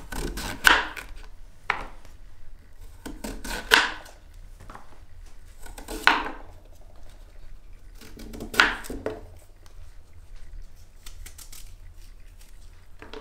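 Kitchen knife slicing lengthwise through a peeled zucchini and knocking on a plastic cutting board. There are four slicing strokes a couple of seconds apart, with a few lighter taps between them.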